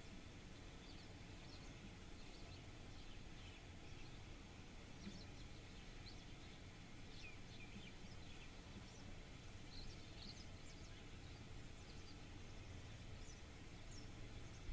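Faint outdoor ambience: small birds give scattered short, high chirps over a low, steady rumble.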